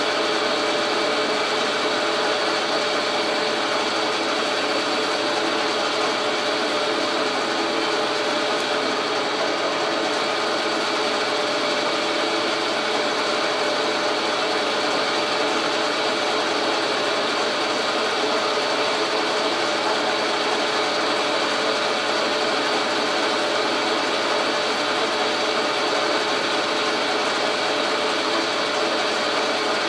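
Logan metal lathe running steadily with a 2-inch aluminum rod spinning in it, a machine whine of several steady tones over an even hum.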